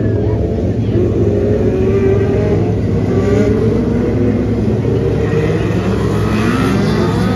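A pack of small open-wheel dirt-track race cars running together around the track, many engines at once, their pitches rising and falling as they lap.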